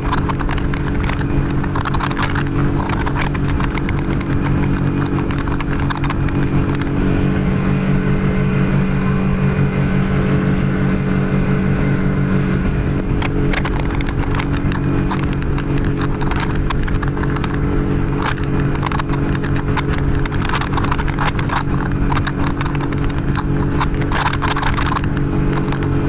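Outboard motor of an inflatable boat running at a steady speed, with the hull slapping irregularly against small waves and water rushing past.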